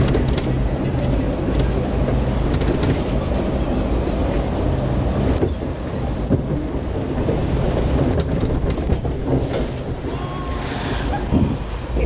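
Water-ride boat being hauled up the lift hill: the lift conveyor runs beneath the boat with a steady low rumble and clatter.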